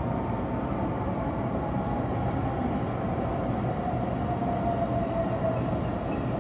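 Nishi-Kyushu Shinkansen Kamome (N700S) heard from inside the passenger cabin as it slows into a station: a steady rumble and hiss of running noise with a faint whine that slowly falls in pitch as the train brakes.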